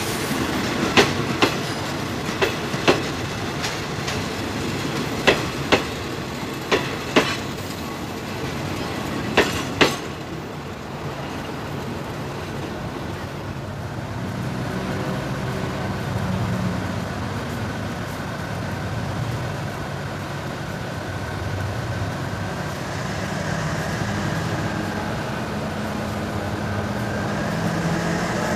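Railway passenger coaches rolling past, their wheels clicking unevenly over the rail joints, until the sound cuts off about ten seconds in. After that a diesel locomotive's engine runs steadily as the train draws slowly nearer, growing a little louder near the end.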